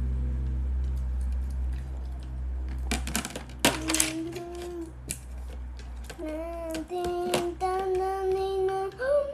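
A child singing a few long, held notes at a steady pitch, starting a few seconds in. Just before the singing there is a quick clatter of light clicks, like tableware.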